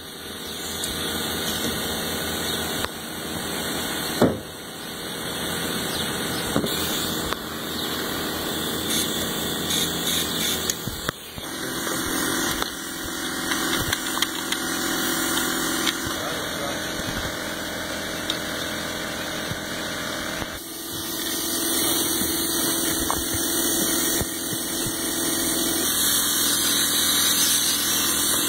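Air compressor running steadily for a pneumatic framing nailer, with a few sharp nail-gun shots, clearest about four seconds in and again about eleven seconds in.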